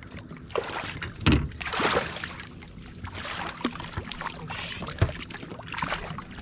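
Splashing water and knocks against a kayak as a hooked bass is fought to the boat. There is a heavy thump about a second in and another near five seconds.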